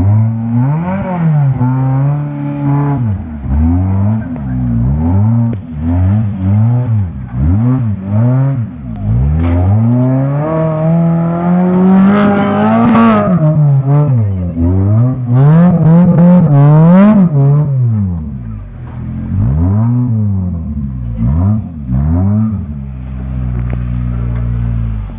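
Suzuki Gypsy 4x4's engine revved in repeated short bursts, pitch rising and falling about once a second. In the middle it makes a longer climb to high revs, then settles to a steadier low run near the end.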